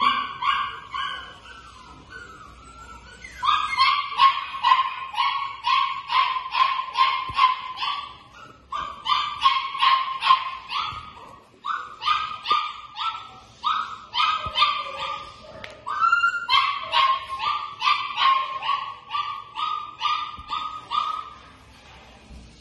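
A puppy yapping in play: runs of short, high-pitched barks, about three or four a second, broken by brief pauses.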